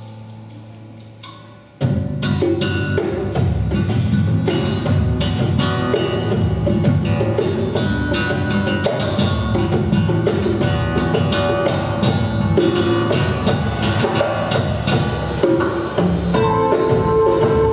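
Live band of piano, double bass, acoustic guitar and drum kit playing an upbeat instrumental. A held chord fades away, then about two seconds in the whole band comes in together with busy drumming.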